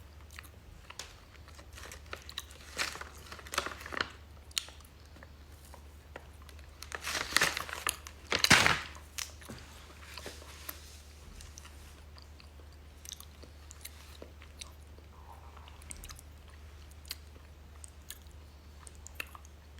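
A person chewing and biting into a cookie close to the microphone, with small crunches and mouth clicks, and a louder burst of noise about eight seconds in.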